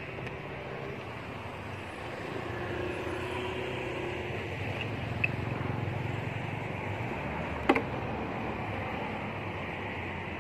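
Steady outdoor background rumble, with no clear tone, that swells slightly about two seconds in. A faint click comes about halfway through, and a sharp, louder click a little later.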